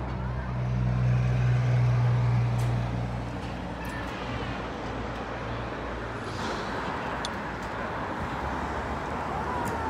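MBTA transit bus going by: a low engine hum, loudest in the first few seconds, gives way to steady tyre and traffic noise.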